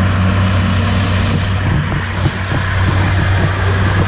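Farm tractor's engine running steadily while hitched to a pulling sled, a loud, deep, even drone.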